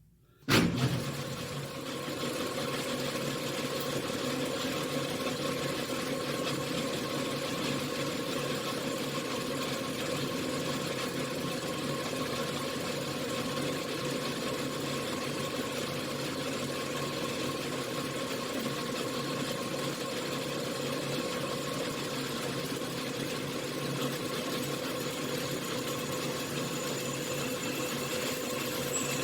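1953 Logan 12-inch engine lathe switched on about half a second in, starting with a sudden jolt, then running steadily with a constant hum and whine.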